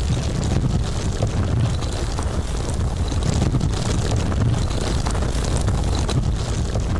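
Landslide sound effect: a steady, deep rumble with scattered faint ticks of rock and stone over it.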